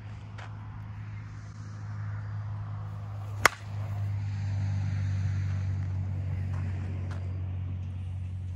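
One sharp crack of a Short Porch Salty Dog USSSA slowpitch softball bat striking a ball, about three and a half seconds in. Under it runs a steady low hum, and a rushing background noise swells just after the hit.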